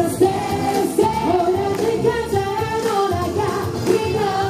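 A woman singing live into a microphone over an amplified dance-pop backing track.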